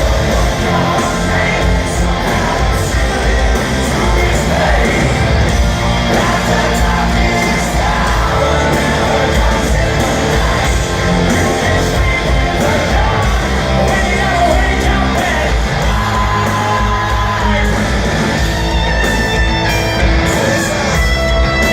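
Hard rock band playing live in a large hall: heavy drums and bass, electric guitars, and loud sung and shouted vocals. Near the end the guitars come forward.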